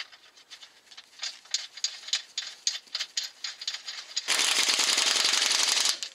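Light, quick clicking of metal on metal, about four clicks a second, as a subframe mounting bolt is worked in. Then a power wrench on a long socket extension runs the bolt in, loud and even, for almost two seconds before stopping.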